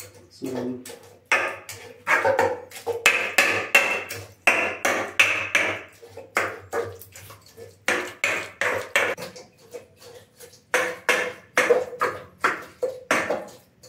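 A spatula scraping and knocking against a nonstick pan as cooked vegetables are stirred and mashed: a brisk run of strokes, about three or four a second, easing briefly about ten seconds in.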